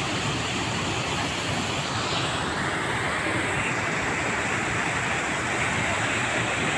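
River water rushing steadily through a rocky tunnel, a continuous dense noise without letup.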